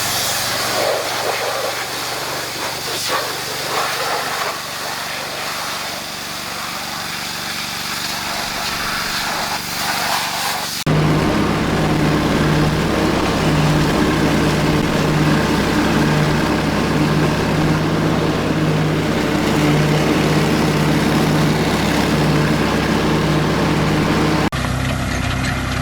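An even, wind-like hiss for about ten seconds, then an abrupt cut to a farm tractor engine running steadily with a pulsing low note. Near the end there is another sudden cut to a different engine sound.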